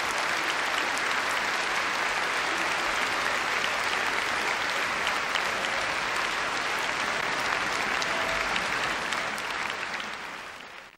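Concert audience applauding steadily with many hands clapping at once; the applause fades away near the end.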